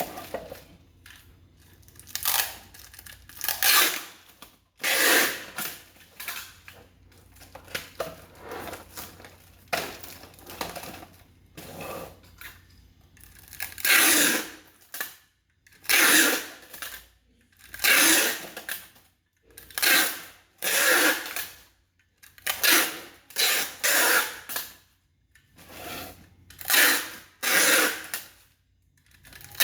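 Packaged items being handled by hand, rustling and clattering in irregular bursts about a second apart.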